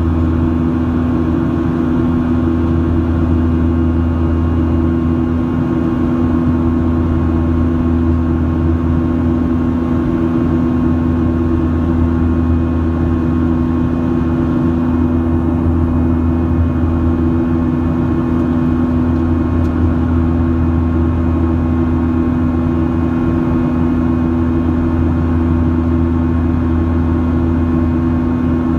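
Steady cabin drone of a Boeing 737-700's CFM56-7B turbofan engines in flight, heard from a seat over the wing, with a deep hum and a few steady humming tones that hold unchanged throughout.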